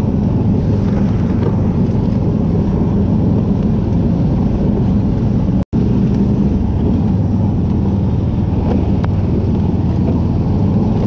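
Engine of a tracked motorized snow tow (motodog) running steadily as it drives along a snowy trail. The sound cuts out for a moment about halfway through.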